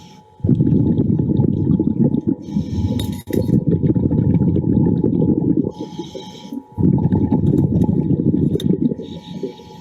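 Scuba diver breathing through a regulator underwater: a short hiss on each inhale, then a long rumble of exhaled bubbles, about one breath every three seconds.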